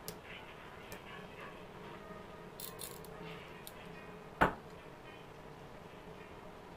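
Faint handling and rubbing of an electric planer's metal gear plate being wiped with a cloth rag, with one sharp knock about two-thirds of the way in.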